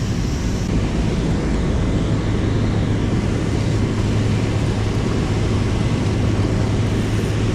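Steady rushing noise of flowing river water, with a constant low hum underneath from about a second in.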